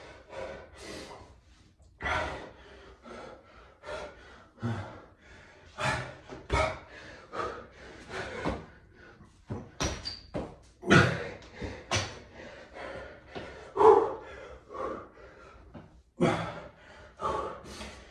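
A man breathing hard in short, sharp exhales and grunts during burpees, mixed with thuds of hands and feet landing on a tiled floor, in an irregular rhythm of about one to two a second.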